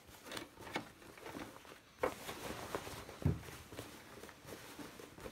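Rustling and shuffling of uniform fabric being moved around on a sewing machine, with scattered light clicks and a thump about three seconds in.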